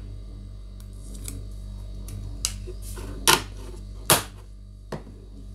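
Clicks of the plastic earbud charging case as the Noise Buds VS404 earbuds are set into it and the lid is snapped shut: a few faint clicks, then two sharp ones about three and four seconds in, over a steady low hum.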